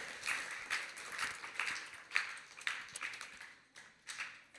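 Audience applause that thins to a few scattered claps and dies away about three and a half seconds in.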